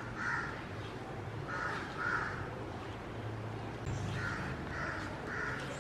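Crows cawing in short runs of harsh calls: two near the start, two about two seconds in, and a run of four near the end.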